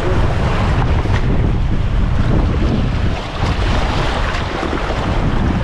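Wind buffeting the microphone in a heavy, uneven low rumble, over the steady rush and splash of river water as a kayak runs a choppy riffle.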